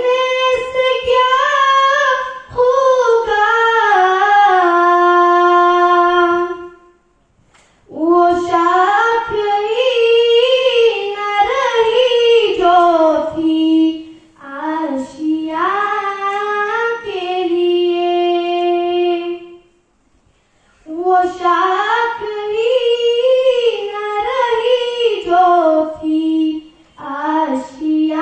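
A young girl singing solo and unaccompanied into a microphone, in long phrases of held, wavering notes, with brief pauses about 7 and 20 seconds in.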